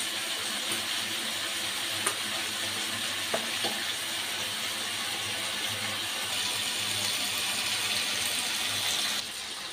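Chili sambal with shredded tuna and stink beans sizzling in a wok over a gas flame: a steady hiss as the sauce cooks down toward dry.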